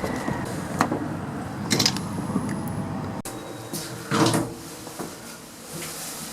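Clunks and clicks from a platform lift's door and mechanism over a steady background hum, with a louder knock about four seconds in.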